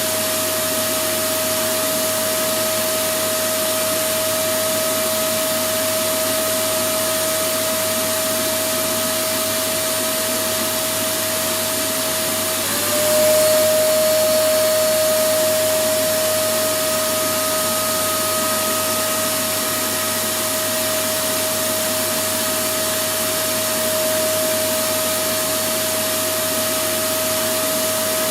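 Electric vacuum cleaner motor running continuously, a steady rushing noise with a high whine. About halfway through, the whine dips briefly in pitch and the sound swells a little louder before settling back.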